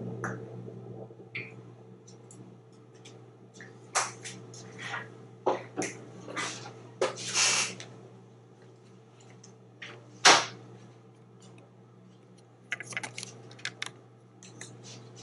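An African grey parrot making scattered sharp clicks and taps while moving about on a plastic TV cabinet, the loudest about ten seconds in and a quick run of them near the end. A low steady hum runs underneath.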